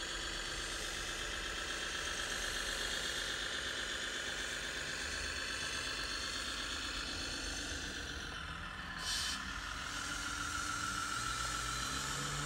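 1:16-scale radio-controlled Volvo A60H articulated hauler driving, its sound module playing a diesel truck engine over a steady high whine. There is a short hiss about nine seconds in, and a deeper engine note comes in near the end.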